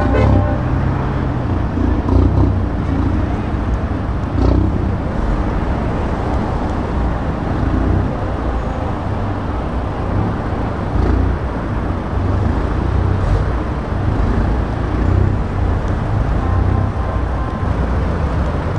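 Diesel engines of heavy lorries idling and creeping forward in a slow queue, a deep steady rumble, led by a classic Seddon lorry.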